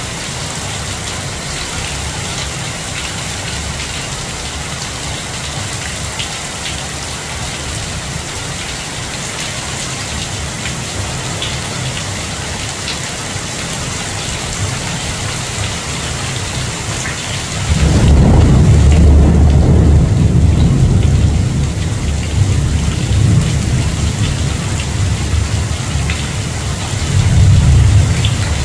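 Heavy rain pouring steadily. About two-thirds of the way through, a loud low rumble of thunder sets in suddenly and rolls on for several seconds, and another swell of rumbling comes near the end.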